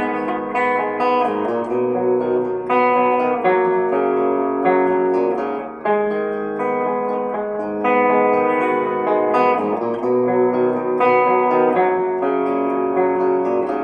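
Tokai Love Rock LS214 electric guitar playing a run of chords, each left to ring, with a new chord every second or two.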